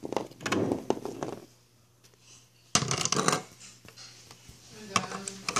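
Small plastic toy pieces clicking and clattering against a plastic playset. The clicks stop for about a second, then a sharper clatter about three seconds in, followed by a few lighter clicks.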